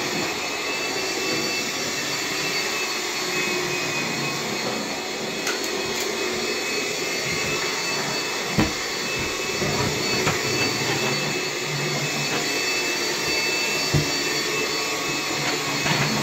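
Bissell PowerGlide cordless stick vacuum running steadily on low power, brush roll off, with a steady whine over its hum and two brief knocks. The owner says it had just started making a noise, which he puts down to a clog of hair that was probably stuck somewhere in the vacuum.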